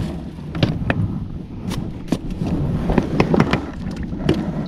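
Scattered knocks and clatter of a plastic cooler box being handled, its lid opened and shut, over a steady low rumble.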